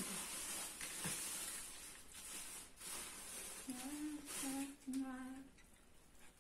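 Crackling and rustling as hands handle food at a table, with a few sharp crackles in the first few seconds. Then a person hums three short, flat 'mmm' notes about four seconds in.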